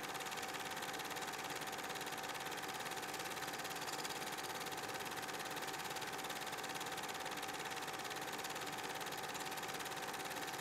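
A steady machine-like drone: an even hiss with a constant thin whine running through it, unchanging in level.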